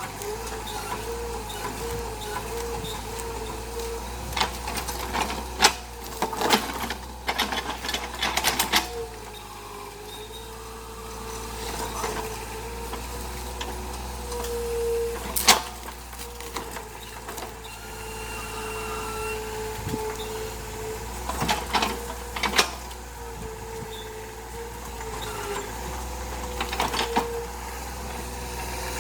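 Excavator at work: the engine runs steadily under a whine that wavers in pitch, with several bursts of sharp knocks and clanks.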